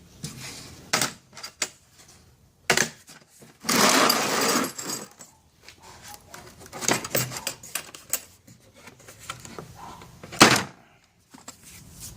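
Plastic case of an impact socket set being handled and opened: sharp clicks and knocks, with a longer scraping rustle about four seconds in and a loud snap near the end.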